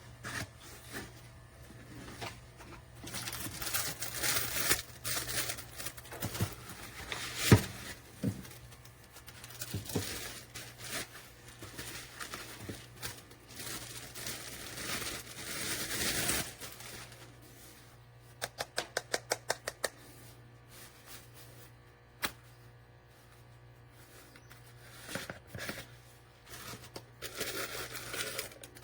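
Handling noises: rustling and crinkling, a sharp knock, then a quick run of about ten clicks and later a single click.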